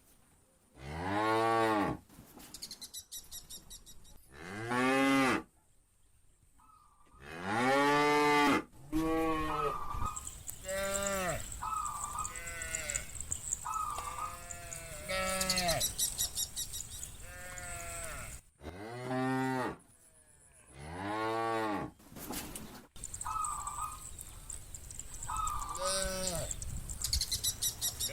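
A herd of cattle mooing again and again, long rising-and-falling moos from several cows, some loud and close, others fainter and shorter, often overlapping.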